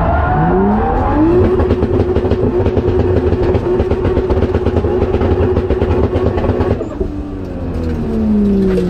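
Drift car's engine heard inside the cabin, revving up and then held on the rev limiter with a fast, even stutter for several seconds. About seven seconds in it drops off the limiter and the revs fall away.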